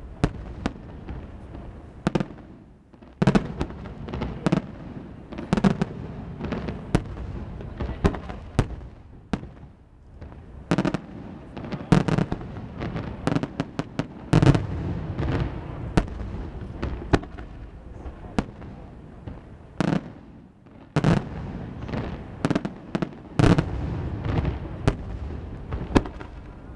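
Fireworks display: dense, irregular volleys of sharp cracks and deep booms, broken by a few lulls of about a second.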